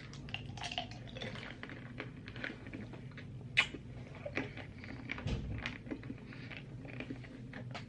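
Mouth sounds from a mouthful of seven Warheads extreme sour hard candies: faint, irregular clicks of the candies knocking against teeth, with wet sucking.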